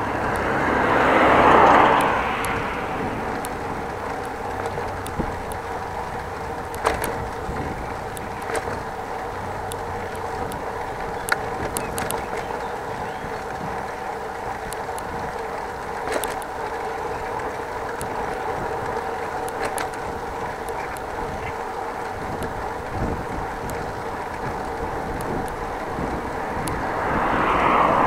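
Riding a bicycle: steady wind and rolling noise with small rattling clicks, and a vehicle passing close by about a second in and another near the end.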